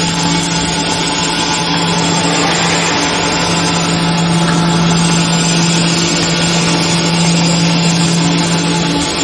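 Machinery running steadily, a loud even noise with a strong low hum.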